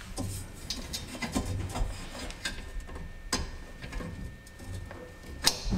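Hands fitting a wire loom and small parts in a side-by-side's engine bay: scattered light clicks and rubbing at irregular intervals, with the sharpest click near the end.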